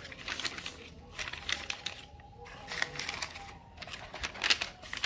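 Sheet of paper rustling and crinkling as hands smooth it over boots in a cardboard shoebox, with irregular light scrapes and taps of the box being handled.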